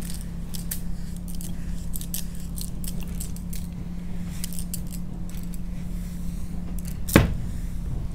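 Bangles on a woman's wrists clinking lightly again and again as she wraps a bandage around an arm. A single sharper knock comes about seven seconds in, over a steady low hum.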